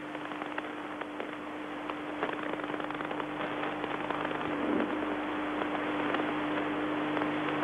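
Steady stadium crowd noise at a cricket ground, heard through an old television recording. It is dotted with many small crackles and carries a steady low hum.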